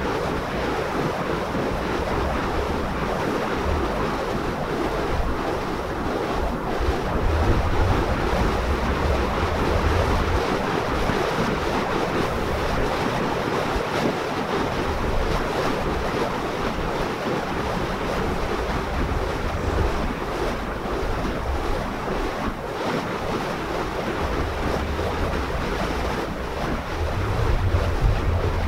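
Steady rushing noise of wind on the microphone, with heavier low buffeting gusts about a quarter of the way in and again near the end.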